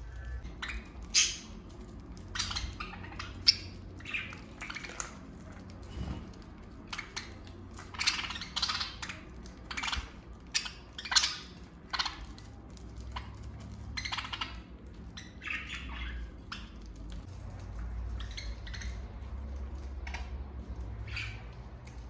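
Budgerigars chirping in many short, separate calls, thickest in the first two-thirds and sparser near the end.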